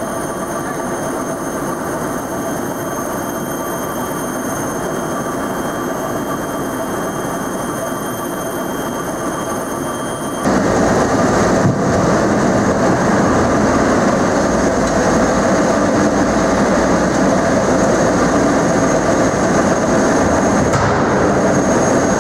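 Wakely roller grinder running steadily while rolling feed grain, a dense continuous machine noise with a few steady high whining tones, as the rolled grain pours from its discharge spout onto a heap. The noise gets louder about ten seconds in.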